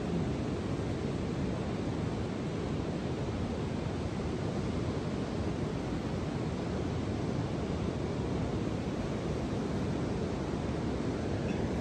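Ocean surf breaking on a sandy beach, heard as a steady low rumble with no single wave crash standing out.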